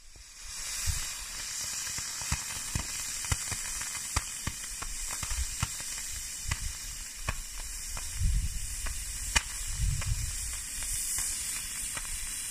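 Sugar rocket motor burning on the ground without lifting off: a steady high hiss that starts about half a second in, with frequent sharp crackles and pops throughout.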